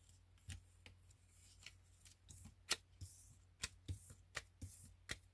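Laminated plastic cards being picked up off a wooden desk and stacked together in the hand: a string of faint, irregular clicks and taps with some light sliding.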